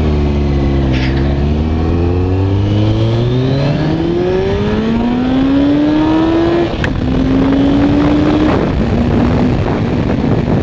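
A vehicle engine pulling away and accelerating through the gears. The engine note rises steadily for several seconds and drops at a gear change about seven seconds in, then climbs again and drops once more near the end.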